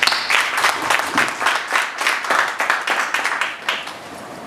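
Audience applauding: a dense patter of hand claps that dies away near the end.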